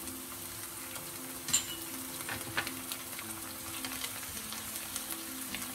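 Chopped onion frying in sunflower oil in a non-stick pan, sizzling steadily. A wooden spatula stirs in chopped coriander and green chilli, with a few sharp taps and scrapes against the pan.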